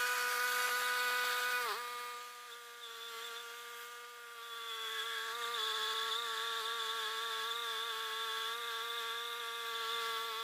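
Woodmizer LT10 portable bandsaw mill running with a steady whine, its pitch dipping briefly about two seconds in. From about four seconds on, a higher cutting noise joins as the band blade saws into the maple log.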